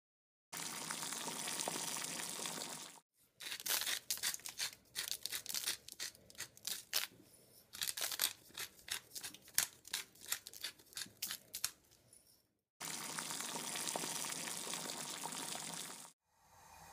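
Irregular crinkling and tearing crackles from handling raw chicken breasts and their packaging. This stretch lies between two blocks of a steady rushing hiss that start and stop abruptly.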